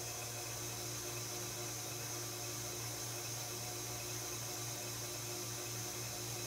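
KitchenAid Artisan stand mixer running steadily, its wire whisk beating egg whites into meringue in a glass bowl. It gives an even motor hum with a hiss.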